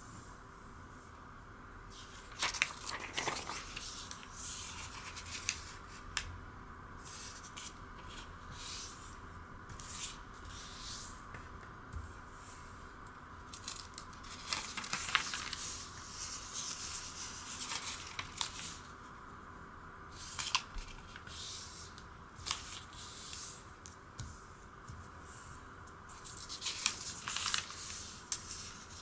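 A square sheet of origami paper being folded and creased by hand: repeated short rustles and crisp swishes of paper sliding and being pressed flat, over a steady faint background hiss.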